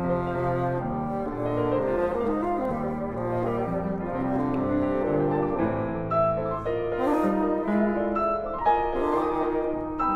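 Bassoon and Steinway grand piano begin playing together: a slow, lyrical classical piece for bassoon with piano accompaniment, held bassoon notes over piano chords.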